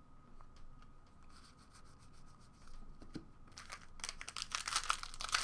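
Trading cards rubbing and sliding softly in the hands. From about four seconds in, a foil card pack is torn open and crinkles, louder than the card handling.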